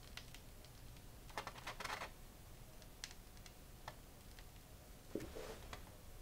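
Heavy watercolor paper being peeled slowly off a gel printing plate, faint crackling ticks as it parts from the dried acrylic paint, with two louder stretches of crackling, about a second and a half in and again after about five seconds.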